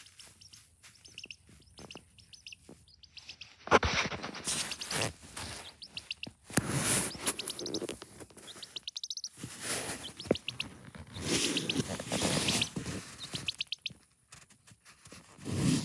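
A sick chick making an odd noise: quick runs of high, rapid peeps, broken by louder rough, hissy bursts of about a second each.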